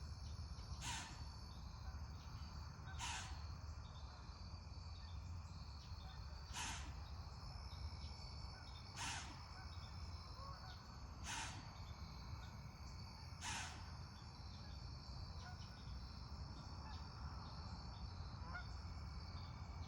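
A deer blowing: six short, sharp snorts through the nose, about every two to three seconds, the last about two-thirds of the way through. An alarm snort at something it senses but cannot see. Steady insect trilling underneath.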